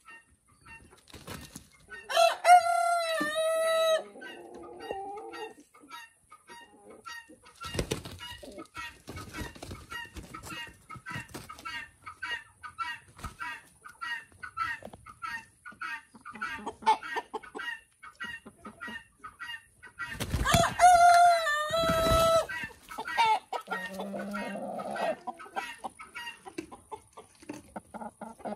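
A rooster crowing twice, about two seconds in and again about twenty seconds in, each crow a couple of seconds long. Between the crows, chickens clucking in a steady run of short calls, a few a second.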